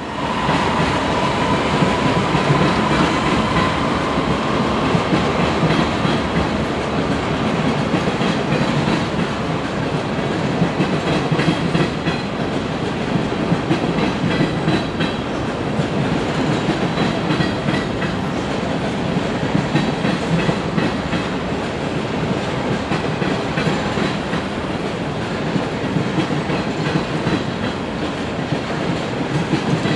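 Freight train cars rolling past on the rail line, a steady rumble of wheels on rail with clicks from wheels passing over rail joints. A thin high wheel whine sounds over the first few seconds, then fades.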